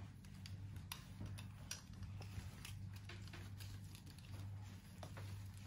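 Faint scattered clicks and light rustling from hands handling a small plastic doll and its dress, over a low steady hum.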